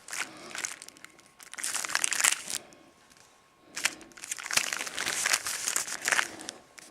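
Crinkling of firecracker packaging being handled, in several bursts with a short pause in the middle.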